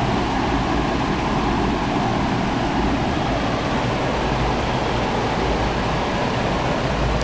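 Steady, even rushing noise with no tones, rhythm or distinct events.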